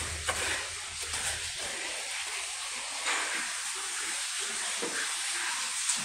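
Steady hiss with a few faint knocks.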